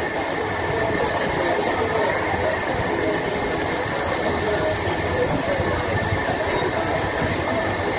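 Busy restaurant ambience at a table barbecue: a steady rushing hiss and hum, likely from the grill and its overhead exhaust, with indistinct background chatter.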